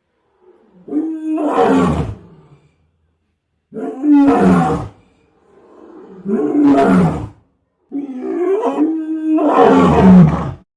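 A monster's roar sound effect, heard four times in a row with silence between. Each roar rises and then falls in pitch, and the last is the longest, about two and a half seconds.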